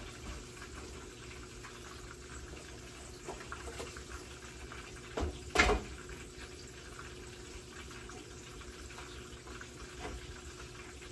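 Steady, faint watery noise, with a small knock about five seconds in and a sharp, louder knock just after it.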